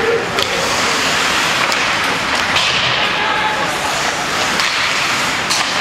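Ice hockey rink during play: steady arena noise with voices, broken by sharp cracks of sticks and puck, one about half a second in and another near the end.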